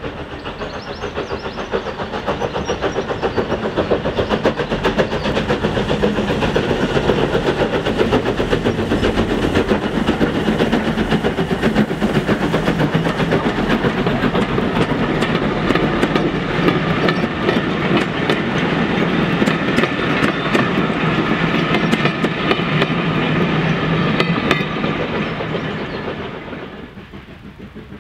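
A vintage train passing: a small steam tank locomotive and its old carriages rolling by, with wheels clattering rhythmically over the rail joints. The sound builds up early, stays loud, and falls away sharply about a second and a half before the end.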